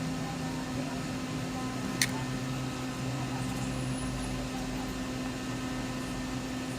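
Steady mechanical hum with a few constant tones, like a small fan or appliance running, and a single sharp click about two seconds in.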